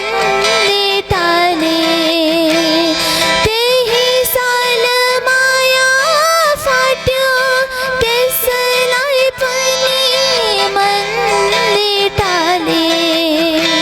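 A young woman singing a Nepali modern song (adhunik geet) solo, holding long notes with a wavering vibrato and gliding between pitches.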